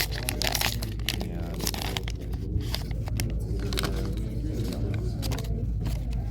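Trading cards and their packaging handled and sorted on a table: a run of quick rustles, crinkles and small clicks.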